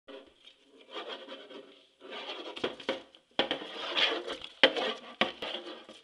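Small flashlight being rolled and scraped across the bottom of a wooden drawer, in stretches of rubbing with several sharp knocks against the wood.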